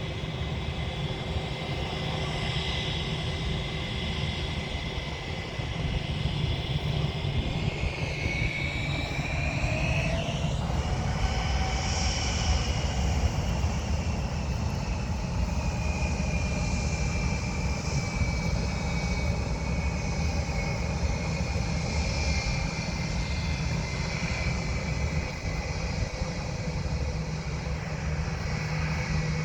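Airplane engines running loud and steady during a takeoff from the airport. A whining tone slides sharply down in pitch about ten seconds in as the aircraft passes.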